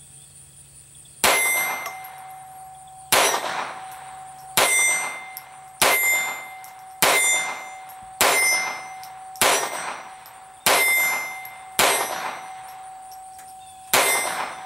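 Browning 1911-22 Compact .22 LR semi-auto pistol fired ten times in slow, steady succession, a full 10-round magazine of standard velocity ammunition, each shot followed by a short metallic ring. The pistol cycles every round, showing it works with standard velocity loads.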